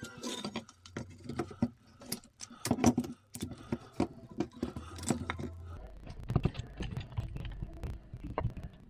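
Irregular clicks and knocks of wooden lamp parts and a cable being handled on a workbench, then a hand screwdriver turning a screw into the softwood base, with a low rumble from about two-thirds of the way in.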